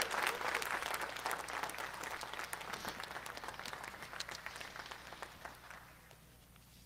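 Applause from a crowd greeting the rocket's upper-stage ignition: many hands clapping, fading away over about six seconds to near silence.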